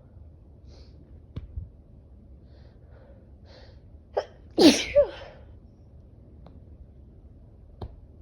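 A woman's allergic sneeze about halfway through: a few short in-breaths build up, then one loud sneeze whose voice falls in pitch, with a short second burst right after it.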